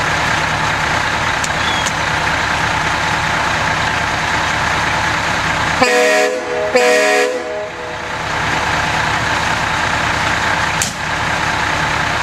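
A Kenworth W900L truck's air horn gives two short blasts about halfway through. Under it, a truck's diesel engine idles steadily.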